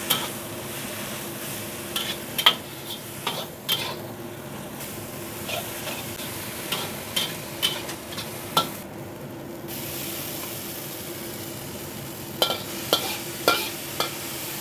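Water spinach and anchovies stir-frying in a pan: steady sizzling, with the spatula scraping and clacking against the pan. The clacks are scattered at first and come thick and fast near the end.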